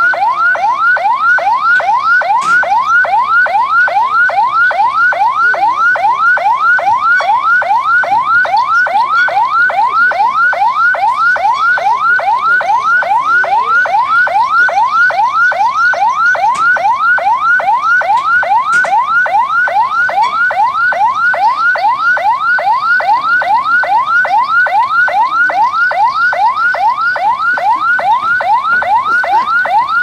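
Electronic siren in a fast yelp, a rising sweep repeated about two to three times a second without a break.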